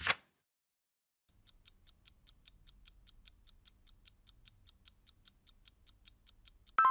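Stopwatch countdown sound effect: a short whoosh, then steady clock ticking at about five ticks a second, ending in a short bright chime near the end.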